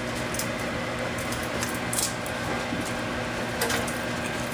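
Sticky candy-sandwich pieces being handled on a paper plate: a few soft clicks and squishes over a steady room hum.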